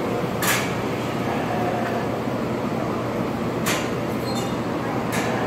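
Steady background din of a sheep sale barn, with three short sharp clicks: about half a second in, near four seconds, and near the end.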